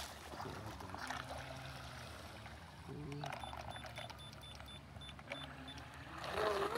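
Electric RC catamaran running flat out on an 8S battery, its motor and propeller spray a faint steady hum that fades as the boat speeds away across the water.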